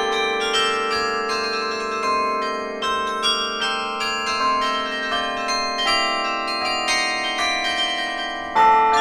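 Carillon bells played from the baton keyboard: a melody of struck bell notes, each ringing on and overlapping the next, over a long-sounding lower bell. A louder stroke comes near the end.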